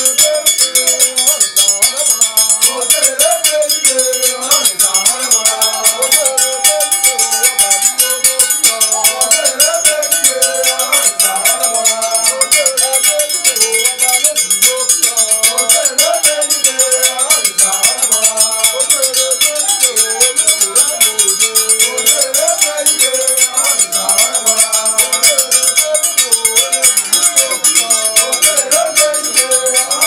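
Traditional Nigerian percussion: hand-held iron bells struck fast and steadily with sticks, with male voices singing over them.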